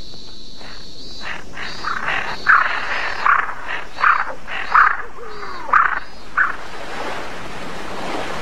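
Crows cawing: a series of about seven caws, starting about two seconds in, over a steady background hiss.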